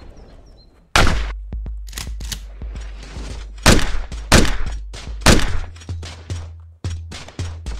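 Handgun shots in a shootout: about a dozen single shots at uneven spacing, the loudest in the first five or so seconds, each with a short echoing tail. A steady low hum runs underneath.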